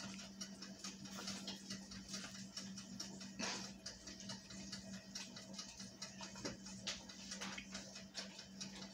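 Quiet kitchen room tone: a faint steady hum with a light scatter of small irregular clicks and ticks, one slightly stronger click about three and a half seconds in.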